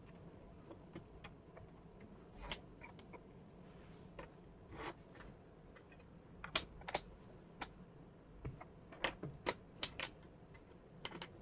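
Wooden jigsaw puzzle pieces clicking and tapping on a tabletop as they are picked up, sorted and pressed into place: scattered light clicks at an irregular pace, the sharpest about the middle and a quick run of them near the end.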